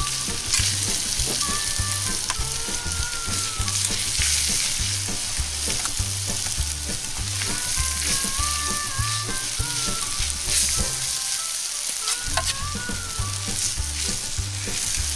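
Grated raw potato sizzling as it lands in bacon and butter in a hot cast-iron pan, with a metal spoon scraping and stirring as the potato is spread out. Soft background music with a steady low beat runs underneath.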